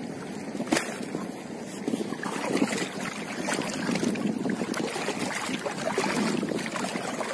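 Legs wading through shallow seawater, sloshing and splashing in an uneven rhythm of steps, with a few sharp splashes.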